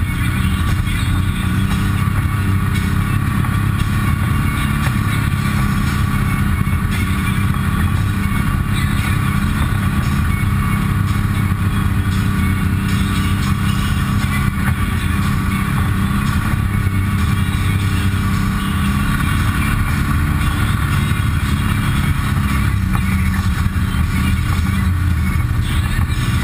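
Side-by-side UTV's engine heard from inside the cab, running steadily at slow trail speed with no revving or pauses.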